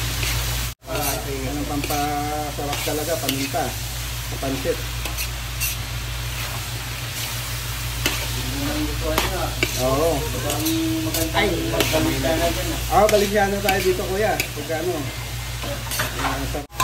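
Chicken, hot dog slices and chicken liver frying in a large metal pan, sizzling as a metal utensil stirs and scrapes them, over a steady low hum. The sound cuts out briefly just under a second in and again near the end.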